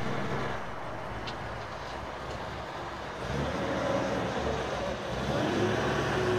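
A motor vehicle's engine running with road traffic noise. The hum grows louder about halfway through and again near the end.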